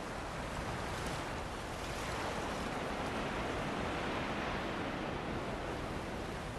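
Ocean surf washing onto a beach mixed with wind, a steady rushing noise.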